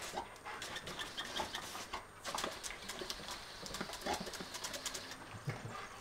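Bernese mountain dog biting and snapping at a jet of water from a garden hosepipe, with water spattering: a quick, irregular run of wet clicks and splashes.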